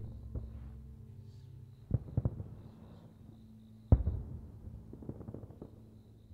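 Aerial firework shells bursting: a cluster of bangs about two seconds in, the loudest single bang about four seconds in, then a scatter of smaller crackling pops.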